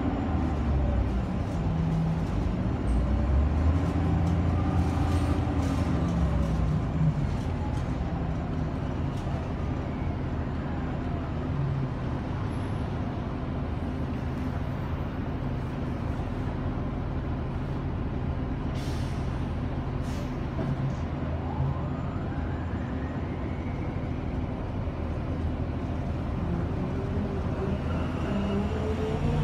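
City transit bus running, heard from inside the passenger cabin: a steady low engine drone with a drivetrain whine that rises in pitch as the bus gathers speed in the last third.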